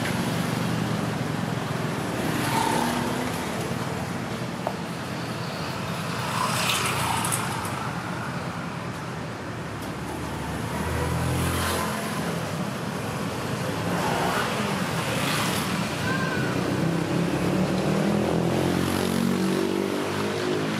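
Road traffic passing a street stall: a steady rumble of vehicles that swells and fades several times.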